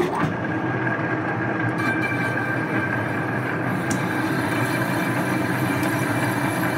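Metal lathe, rated at 10 horsepower, turning a cast Volvo portal-axle stub axle while the cutting tool takes a heavy cut off its flange. Steady, even machine noise, with a high ringing tone from the cut coming in about two seconds in.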